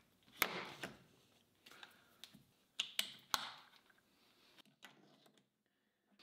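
Metal parts of a lathe's compound slide clicking and scraping as they are fitted together by hand: the lead screw's bearing bracket and graduated dial collar being pushed into place. A few sharp clicks stand out, one about half a second in and two close together around three seconds.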